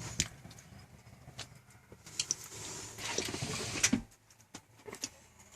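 Scattered light clicks and knocks, with a short rustling stretch about three seconds in.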